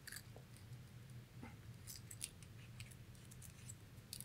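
Faint, scattered small clicks and ticks of fingers handling an air-rifle check valve and working its small countersunk screw free, over a low steady room hum.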